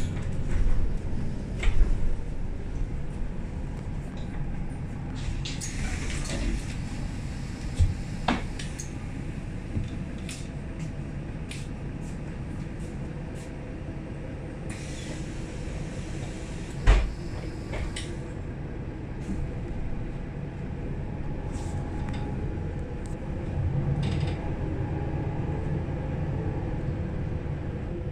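Inside a 2009 Mercedes-Benz O530 Citaro Facelift city bus: the engine runs with a steady hum, with scattered clicks and knocks from the bus and two stretches of hiss. A sharp knock about seventeen seconds in is the loudest sound.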